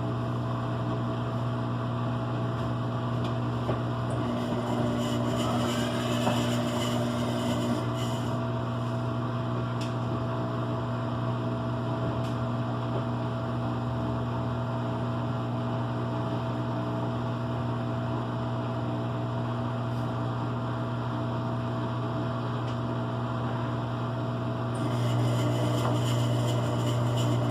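Electrolux LE05 washing machine running, a steady motor hum that steps up a little louder near the end.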